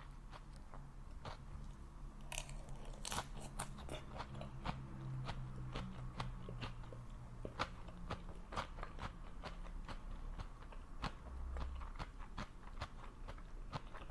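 A person chewing food close to the microphone: a quick run of crisp, crunchy clicks, several a second.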